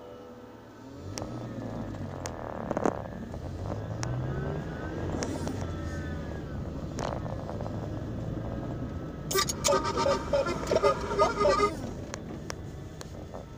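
Car engine and road noise heard from inside a moving car, the engine rising in pitch a few seconds in as the car moves off. Near the end comes a louder, choppy pitched sound lasting a couple of seconds.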